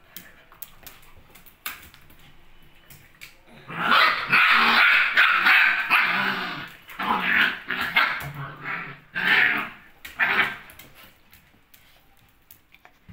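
Two dogs barking and growling at each other. A loud stretch of about three seconds begins a few seconds in, followed by several shorter barks, and it dies down near the end.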